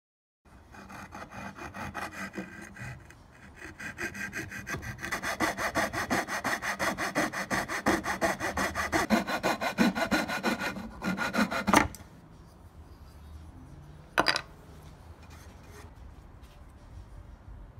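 Coping saw cutting through a pine board in quick back-and-forth strokes, which stop with one sharp crack as the cut finishes, about twelve seconds in. A single sharp knock follows a couple of seconds later.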